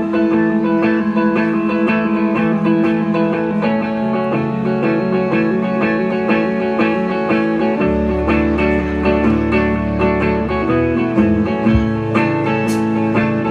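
Live band playing an instrumental intro led by strummed guitars, with a bass line coming in about eight seconds in.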